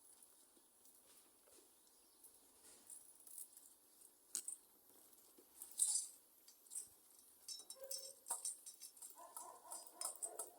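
Faint scattered light clicks and taps. In the last couple of seconds a German shepherd gives soft broken whines.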